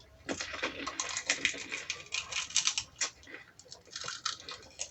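Close-up chewing and mouth sounds of someone eating a bite of food: a dense run of quick, wet clicks and smacks that pauses and resumes near the end.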